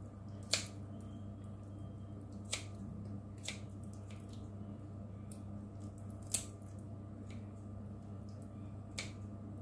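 Kitchen scissors snipping raw chicken meat and sinew away from the wing bone while deboning. It comes as a few sharp, separate clicks of the blades a second or more apart, over a faint steady hum.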